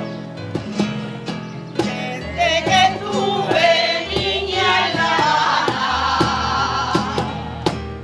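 Strummed acoustic guitar with a choir of older singers, mostly women, coming in about two seconds in and holding a wavering sung line until near the end.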